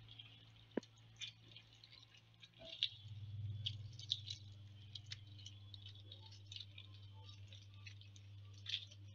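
A lemon half squeezed by hand, its juice dripping onto grated vegetables: faint, irregular small ticks and drips over a steady low hum.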